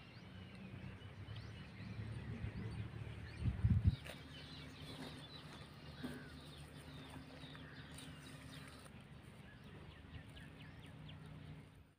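Small birds chirping over and over in the background, over a steady low hum, with a brief low rumble on the microphone about three and a half seconds in.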